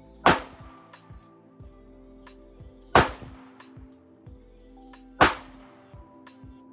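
Three pistol shots from a Sig P365 9mm, about two and a half seconds apart, over background music.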